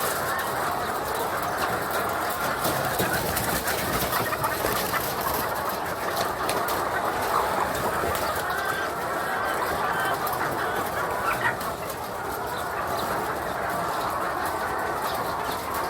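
A large flock of chickens in a poultry shed, many birds clucking and calling at once in a steady, dense chorus.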